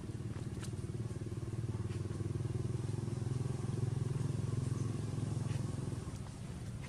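A small motor engine running steadily, swelling a little around the middle and easing off near the end.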